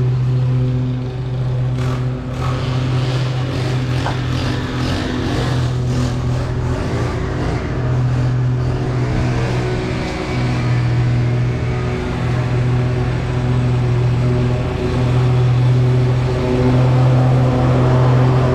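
Lawn mower engine running steadily at working speed under mowing load.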